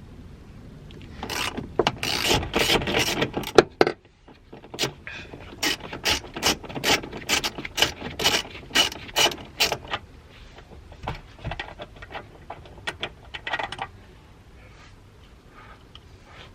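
Socket ratchet clicking as it turns out a rear seatbelt anchor bolt: a quick burst of clicks, then a regular run of about two or three strokes a second, growing fainter and stopping near the end.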